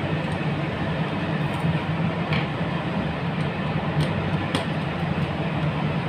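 Steady low background hum with a rushing noise, like machinery running, with a few faint light clicks from hands working wires into breaker terminals.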